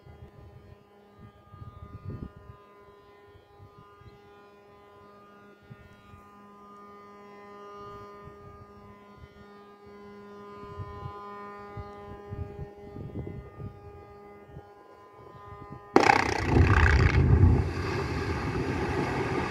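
A steady drone with several pitches, with low gusts of wind on the microphone, then about three seconds before the end a sudden loud blast of dynamite charges in quarry rock, followed by a continuing heavy rumble.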